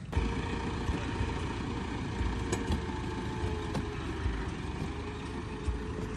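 Farm tractor engine running steadily, with a low rumble and a few sharp clicks.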